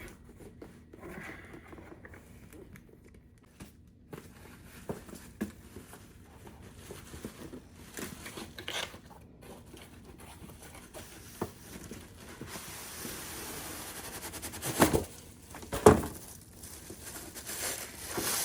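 Packaging being opened by hand: scattered rustles and small clicks, then a stretch of tearing and crinkling. Two loud thumps about a second apart come near the end.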